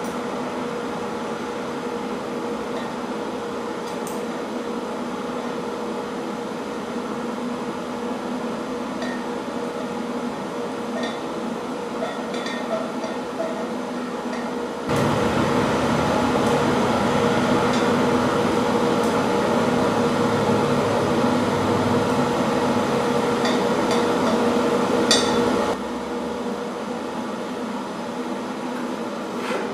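Eastwood TIG 200 welder and its arc humming steadily while tacking steel pipe. About halfway through, a louder, rougher rush joins in for roughly ten seconds, then cuts off suddenly. A few faint ticks are heard.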